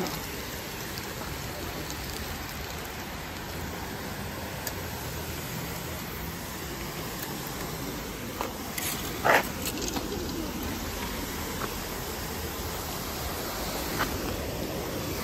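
Steady rushing of water pouring over a spillway. A few short sharp clicks come about nine seconds in, the loudest event, and another near the end.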